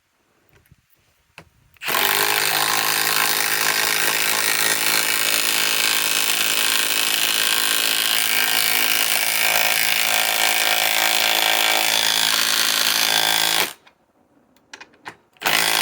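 Cordless impact wrenches (a Hercules compact 1/2-inch and a Milwaukee M12 Fuel stubby) hammering continuously for about twelve seconds while driving thick lag screws, stopping abruptly; a brief second burst follows near the end.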